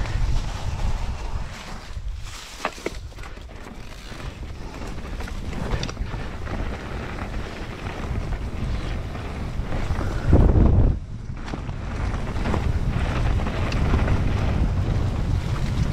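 Wind buffeting the microphone of a mountain bike's camera while riding a dirt singletrack, over a rumble of tyres rolling on dry grass and leaves. A few sharp clicks come about two and a half seconds in, and a short, louder rush of wind about ten seconds in.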